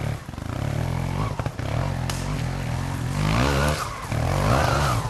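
Off-road motorcycle engine revving up and down in bursts under load as it climbs a slope of rocks and branches, with a few sharp knocks early on and a louder stretch of revving after about three seconds.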